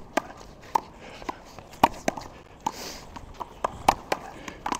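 Small rubber handball being slapped by hand and smacking off the wall and court in a rally: about ten sharp pops with a short ring, unevenly spaced.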